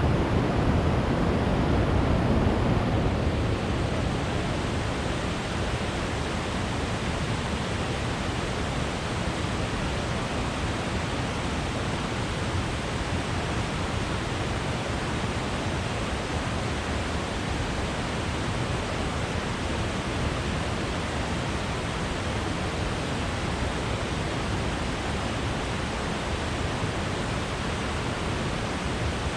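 Waterfall running: a steady, even wash of falling water, a little louder for the first three seconds.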